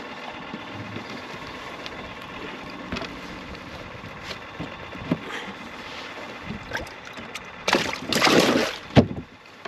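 A walleye going into the boat's livewell: a loud splash lasting about a second near the end, then a sharp knock. Under it, a steady wash of water and wind noise with small handling clicks.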